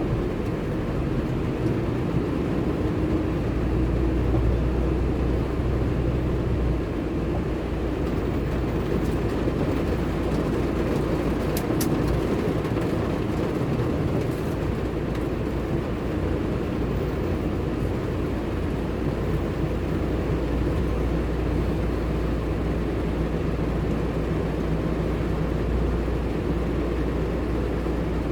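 Steady low rumble of a car being driven, engine and tyre noise heard from inside the cabin, with a single brief click about 12 seconds in.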